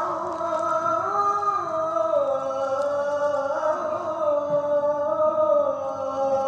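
A man chanting in long held, ornamented phrases that slowly bend in pitch, in the style of Islamic vocal recitation.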